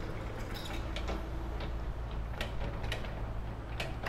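Street ambience: a steady low traffic rumble, with sharp, irregular ticks and clicks scattered through it.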